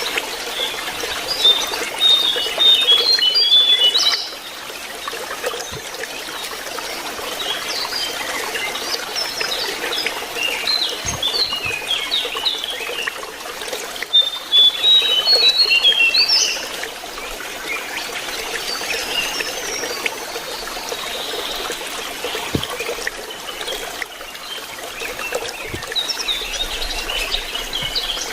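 Lesser shortwing (jongkangan) song: rapid twittering phrases of high, quick notes, loudest in two dense bursts near the start and about halfway through, with softer scattered notes between, over a steady trickle of running water.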